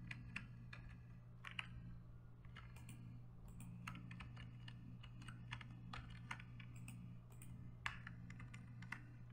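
Faint, irregular clicks of a computer keyboard and mouse as shortcuts and mouse buttons are pressed, over a steady low hum.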